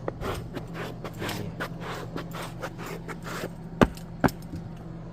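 A run of short scraping and rustling strokes with two sharp clicks just under a second apart near the end, over a steady low hum.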